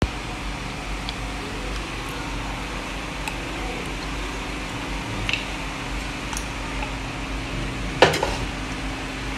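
Steady kitchen background hum and hiss beside a soup pot on a gas stove, with one sharp knock about eight seconds in.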